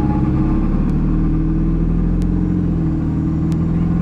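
Ford 7.3 turbo-diesel V8 pulling the truck along the road, a steady engine drone heard from inside the cab.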